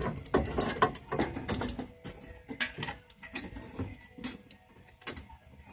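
Irregular clicks, taps and scrapes of hands working with metal parts, likely the new sheet-metal patch and clamps being set against the panel. The clatter is busiest in the first two seconds, then thins to scattered ticks.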